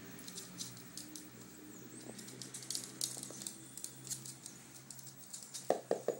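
A chihuahua's claws click and patter on a hard floor as it plays with a ball. Near the end comes a louder run of knocks that come closer together as they die away, like a small ball bouncing to rest.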